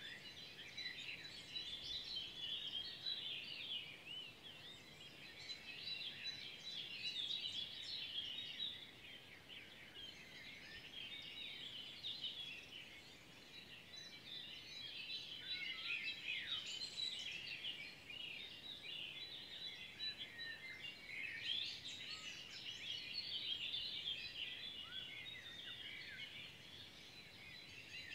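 Spring dawn chorus of many songbirds, their chirps and trills overlapping without a break and swelling and easing in waves.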